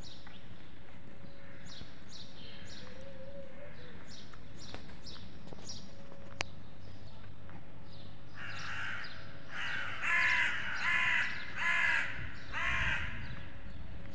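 A crow cawing about five times in a row, starting about eight seconds in. Faint high chirps of small birds come before it.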